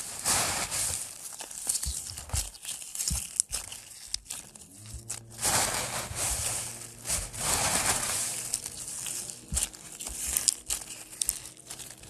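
Clear slime worked by hand in a bed of small foam beads (floam): the beads crackle and crunch in dense, irregular runs of small clicks and pops as the slime is squeezed and pressed into them.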